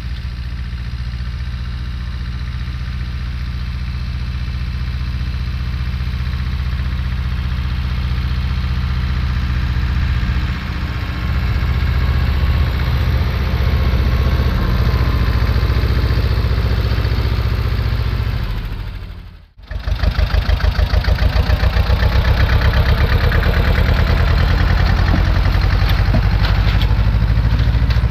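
Old tractor engine running under load as it pulls a seed drill, growing louder as it comes closer. About two-thirds through the sound drops out briefly, then returns close and loud with an even, pulsing beat.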